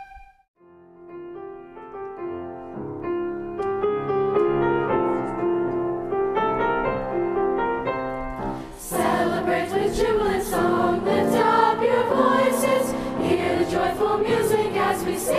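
A choir singing with piano accompaniment: a held flute note ends at the very start, a piano plays an introduction, and about nine seconds in the choir comes in.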